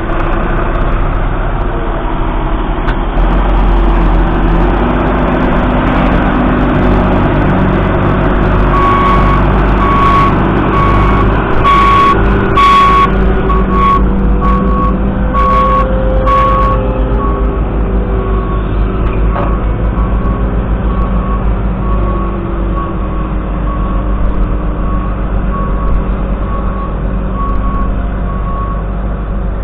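Valtra N174's 4.9-litre four-cylinder diesel tractor engine running steadily, its pitch shifting a little. About a third of the way in, a high beeper starts sounding a regular series of short beeps that runs until near the end, with a few sharp knocks in the middle.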